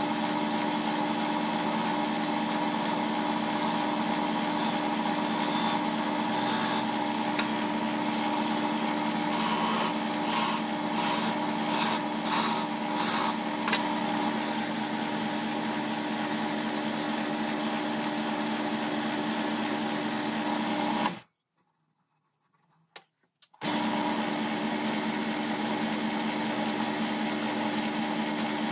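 Small electric wood lathe running with a steady hum as a turning tool works the spinning cherry-wood handle blank, with a run of rasping, scraping strokes around the middle. The sound cuts off completely for about two seconds past the two-thirds mark, then the lathe is running again.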